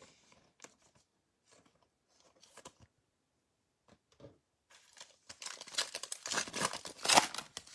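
The foil wrapper of a football trading-card pack crinkling and tearing as it is ripped open by hand, a dense crackle that starts about five seconds in, after a few faint ticks from cards being handled.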